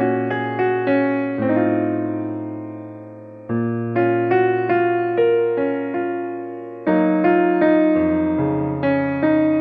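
Background piano music: a gentle melody of struck notes over chords, each note ringing and fading. Near the middle, one chord is left to die away for about two seconds before the melody resumes.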